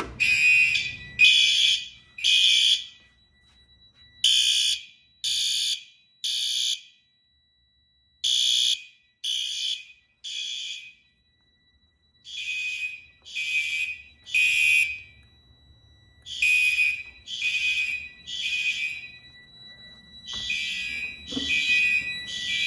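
Fire alarm horns sounding in the temporal-3 evacuation pattern: repeated groups of three short buzzy blasts with a pause after each group. The system is in alarm because the FCI MS-7S pull station has just been pulled. A thin steady high tone runs underneath.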